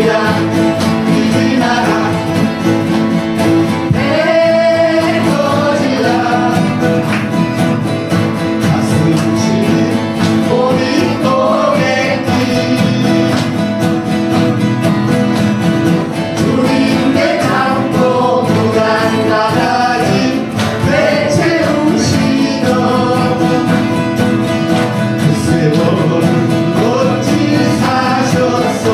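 Several acoustic guitars strummed together in a steady accompaniment, with a woman singing a song over them.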